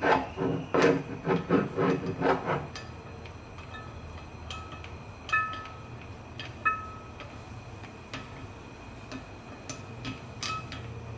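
Metal vise parts being handled while the screw is greased: a quick run of knocks for the first few seconds, then a few single clinks that ring briefly.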